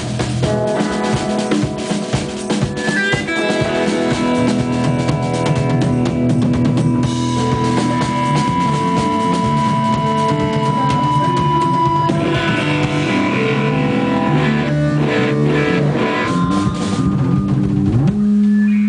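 Live rock band playing, with drum kit and guitar, ending on a note that slides up and is held near the end.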